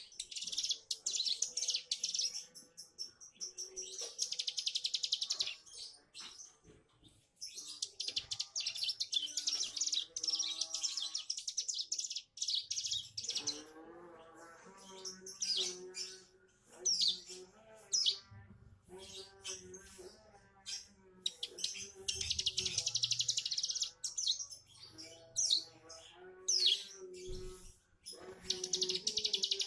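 A ciblek gunung (a prinia songbird) singing: long, fast buzzing 'brennn' trills of a few seconds each, about five of them, broken by short sharp chirps. The trill is the brennn song type the young bird is learning.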